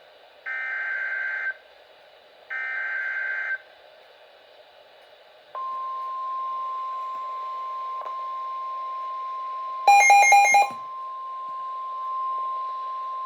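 Emergency Alert System alert opening: the last two of three one-second screeching SAME header data bursts, then after a short pause the long single steady tone of the NOAA Weather Radio warning alarm. About ten seconds in, a brief, loud, raspy beep cuts over the tone.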